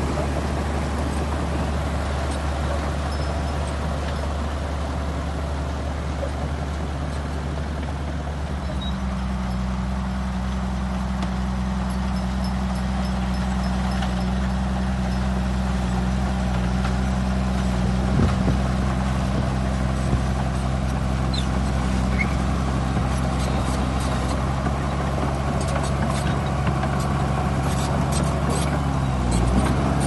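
Diesel engines of Shantui crawler bulldozers working under load: a steady low drone whose note shifts about eight seconds in. A knock comes midway, and light metallic clicks and clanks follow near the end.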